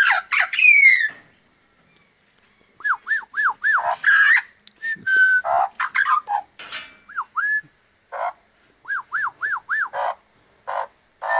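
Australian magpie calling: harsh rough notes and a falling whistle, then two runs of four quick clear whistled notes, each rising and falling, mixed with short harsh notes.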